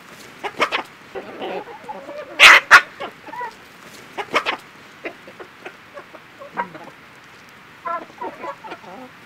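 A flock of hens and roosters clucking in short, scattered calls, with two loud calls close together about two and a half seconds in.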